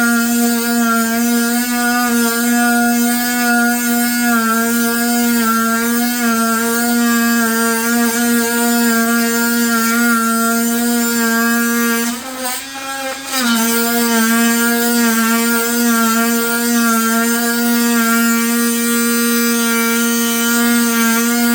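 Milwaukee M18 2626 brushed oscillating multi-tool running at its highest speed, cutting into lumber with a steady buzz. About twelve seconds in, the buzz briefly falters and drops in level, then picks back up. The cut takes quite a while.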